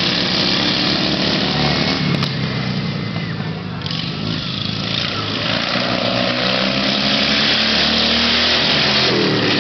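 Small engines of super-modified racing lawnmowers running hard, more than one at a time, their pitch shifting up and down as they speed up and ease off.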